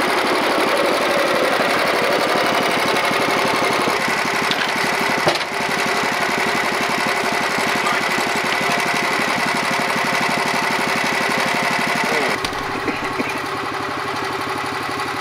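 Gasoline engine of a Norwood LumberMate portable bandsaw mill running steadily, with a steady high whine over it and a knock about five seconds in. About twelve seconds in the whine stops and the engine settles to a lower, slightly quieter running.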